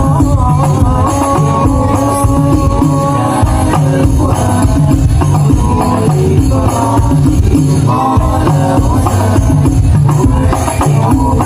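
Hadroh ensemble playing sholawat: frame drums beat a steady, driving rhythm while a voice sings a melody over them.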